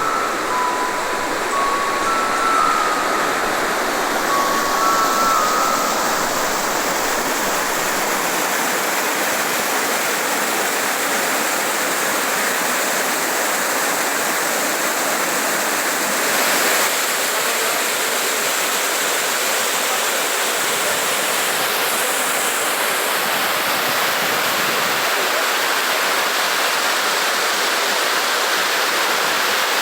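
Steady rush of falling water from a waterfall. A few short high notes of a melody sound over it in the first six seconds.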